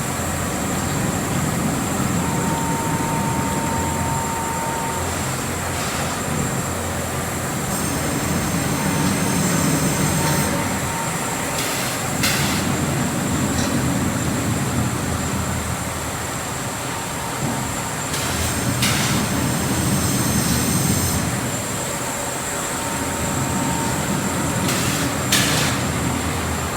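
Machinery of a cooling pad production line (paper resin-coating and heating machines) running with a steady mechanical rumble that swells and eases every few seconds, broken by a few sharp clicks or knocks.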